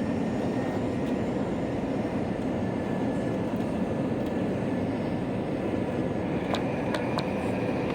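Steady roar of jet engines and rushing air heard inside an airliner cabin on final approach, with a thin whine over it and a few light clicks near the end.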